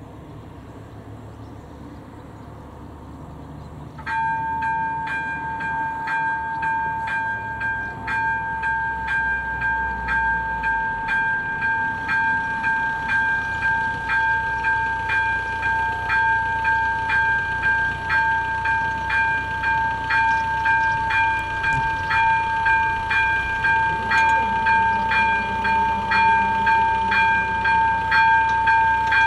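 Railway level-crossing warning bell, an AŽD ZV02 electronic bell, starts suddenly about four seconds in. It then rings steadily in even repeated strikes with a ringing tone, signalling that the crossing has activated for an approaching train.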